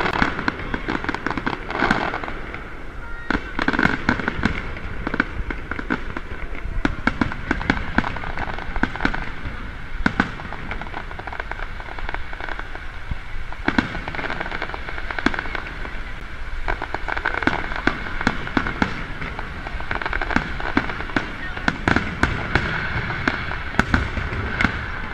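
Aerial fireworks display: shells bursting overhead with many sharp bangs and crackles, coming thick and fast throughout.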